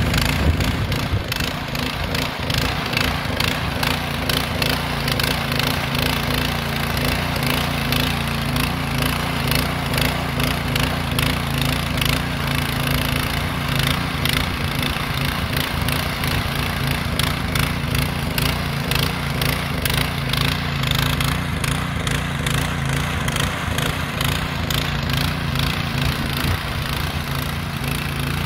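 Rotakt RO75RS 7 HP motor hoe's single-cylinder petrol engine running steadily while its tines till the soil.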